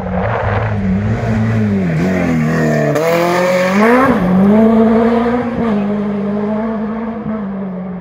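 Rally car engine on a gravel stage, revved hard as the car comes through: the engine note drops and climbs back twice, around two and four seconds in, then holds high, over the rush of tyres on loose gravel.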